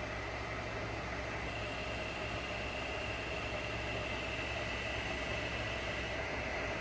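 TOS horizontal milling machine running with its table traversing lengthwise under power feed, just after the feed direction was reversed: a steady mechanical hum with a high gear whine, and a second, higher whine joins about a second and a half in.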